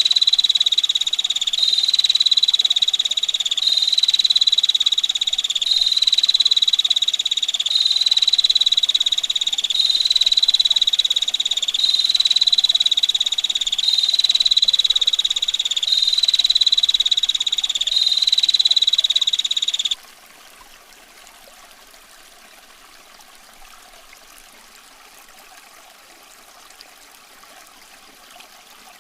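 Female prinia (prenjak betina) giving its dense, harsh rattling trill (ngetir), repeated in runs about every one and a half seconds, which cuts off abruptly about twenty seconds in. After that only a faint steady hiss of running water remains.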